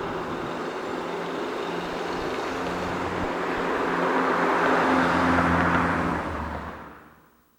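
Motor vehicle engine running with road traffic noise. It swells to its loudest near the end, then fades away.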